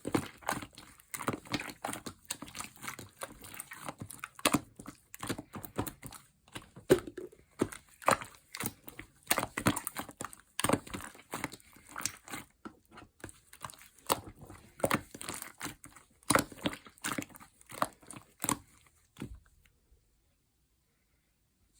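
Slime mixed with clay being kneaded and stretched by hand, with irregular sticky pops and crinkly crackles. It stops about two seconds before the end.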